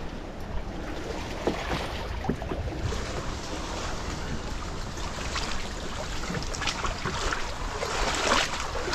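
Wind buffeting the microphone as a low rumble, with water splashing and sloshing from wading steps in shallow water, the splashes more frequent in the second half.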